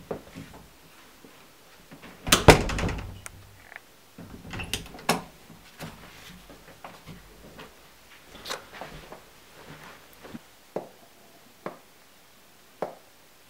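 A door being handled with a loud clatter of knocks about two seconds in, followed by scattered single knocks and thuds, the last few about a second apart.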